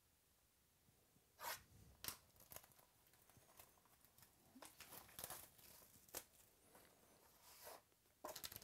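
Packaging being torn open and crinkled by hand as a sealed card box is opened: a series of short tearing and rustling noises, the loudest about a second and a half in.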